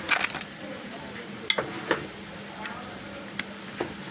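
Scattered sharp clicks and taps of small hard objects, as when a mobile phone is handled and worked on with small repair tools. A quick run of clicks at the start, then single clicks spread through the rest.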